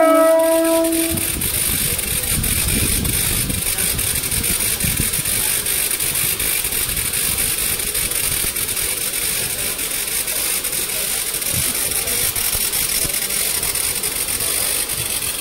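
Mumbai local EMU train sounding a short horn blast of about a second at the start, then a steady rumble and hiss from the electric train as it starts moving off along the platform.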